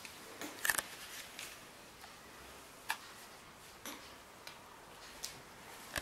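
Faint room tone with a handful of small, irregularly spaced clicks and ticks, about five in all, the clearest a little under a second in and near three seconds in.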